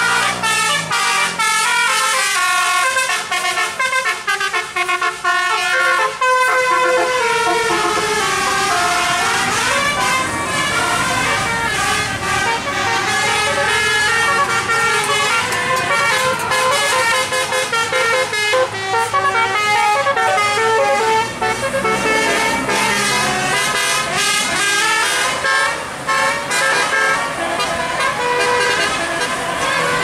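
Bus 'telolet' musical air horns, a Basuri horn module, playing fast multi-note tunes nonstop, the pitch stepping up and down every fraction of a second.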